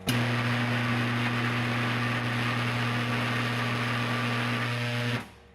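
A homemade 20,000-watt microwave oven runs at full power with sodium metal inside: a loud steady electrical hum with a harsh hiss over it. It starts suddenly and cuts off after about five seconds.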